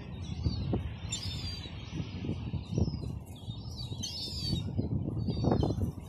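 Herring gulls calling: high, thin, wavering calls in a cluster about a second in and another around four seconds in, with a few shorter calls between, over a low rumbling background.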